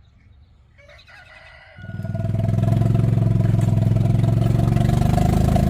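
An engine starts up about two seconds in and runs at a steady speed.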